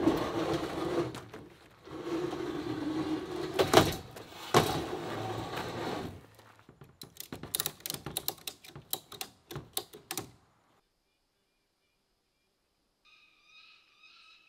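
Canoe hull sliding and scraping across the roof-rack bars of a pickup truck cap, with two sharp knocks about four seconds in. Then a run of quick, irregular clicks as a tie-down strap is pulled tight over the canoe, stopping suddenly about ten seconds in.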